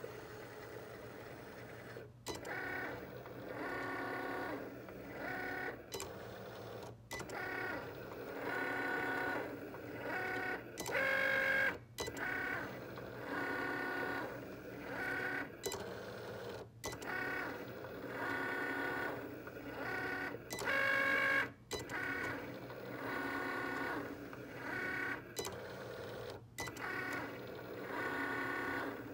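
Cricut cutting machine's motors whirring as the blade carriage and mat rollers move, cutting out printed edible icing-sheet images. The whine comes in stretches of a second or two with short breaks, shifting in pitch, loudest about a third and two-thirds of the way through.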